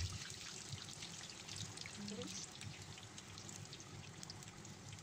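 Poori deep-frying in hot oil: a faint, steady sizzle made up of many small crackling pops.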